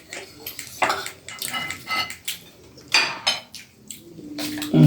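Spoons clinking and scraping against plates as people eat, in irregular short clicks. A brief vocal sound near the end is the loudest moment.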